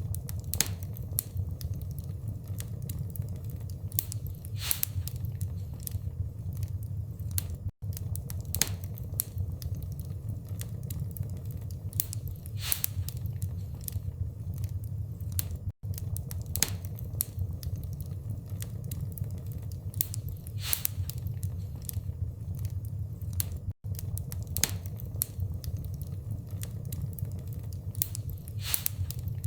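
Log fire crackling and popping, with sharp snaps scattered irregularly over a steady low rumble. The sound cuts out for a split second about every eight seconds, where a looped fire track restarts.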